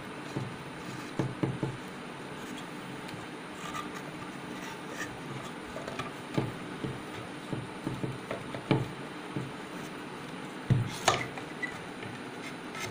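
Handling noise of macrame knotting on a plywood shelf board: cord rustling and scattered light taps and knocks of the wooden board, the loudest a thump about eleven seconds in, over steady room noise.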